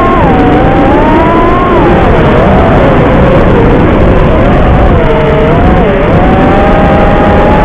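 Whine of an FPV quadcopter's brushless motors and propellers, its pitch rising and falling again and again with the throttle, over a loud steady rushing noise.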